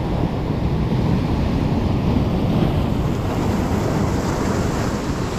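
Sea surf breaking and washing over a beach of rounded cobbles, a steady rushing noise, with wind buffeting the microphone.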